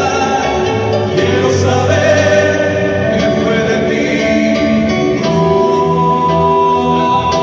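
Live band music with several voices singing together, steady and loud throughout.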